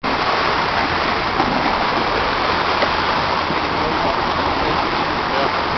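Steady rush of sea water and wind around a yacht crossing a sand bar, with an unsteady low rumble underneath.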